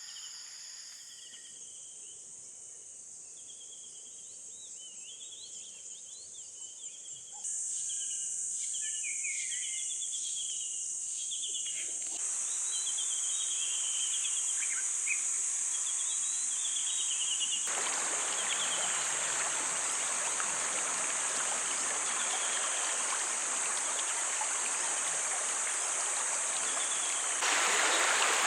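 Insects trilling steadily high up, with scattered chirps. From about twelve seconds in, the rush of a river joins them and grows louder in a few sudden steps.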